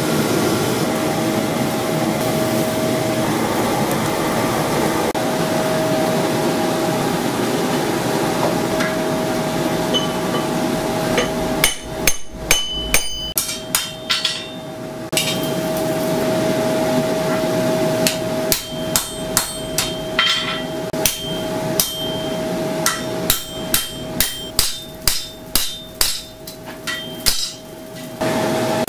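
Blacksmith's hammer striking a red-hot steel bar on an anvil, each blow with a short metallic ring: a cluster of blows about twelve seconds in, then a steady run of roughly two a second from about eighteen seconds. Before the hammering, a steady rushing noise with a held hum from the forge.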